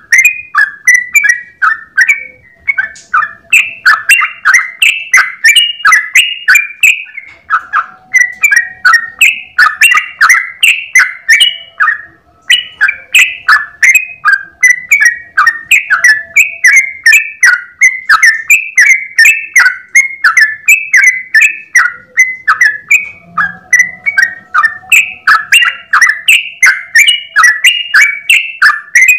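Yellow-vented bulbul (trucukan) singing a long, rapid run of short bubbly whistled phrases, about three notes a second, loud and almost without pause; it breaks only briefly twice.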